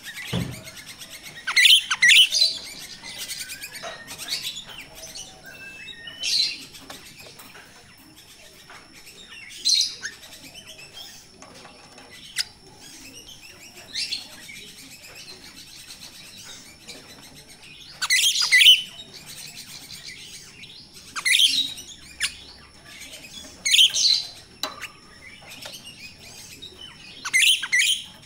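Grosbeak starling (jalak Rio-Rio) giving short, high, sharp calls, about nine of them spaced a few seconds apart, two in quick succession about two seconds in. A brief low thump comes at the very start.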